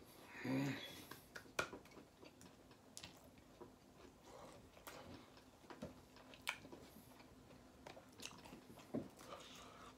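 Close-up chewing of a mouthful of fast food: wet smacks and clicks of the mouth, scattered and irregular. A brief low hummed sound comes about half a second in.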